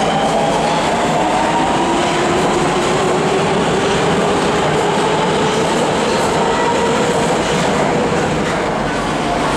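Nagoya Higashiyama Line subway train pulling out of an underground station: its motor whine rises slowly and steadily in pitch as it gathers speed, over the noise of wheels on the rails.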